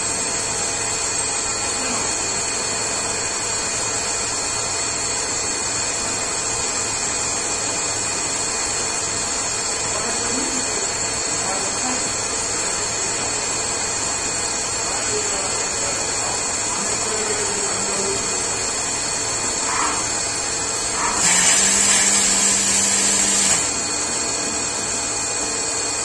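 CNC lathe running its machining program: a steady machine drone with a high whine throughout. About three-quarters of the way through, a louder hiss with a low hum lasts about two seconds.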